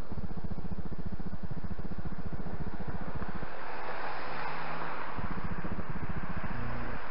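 A car drives over the level crossing close by, its tyre and engine noise swelling and fading about four seconds in, over a steady low fluttering rumble.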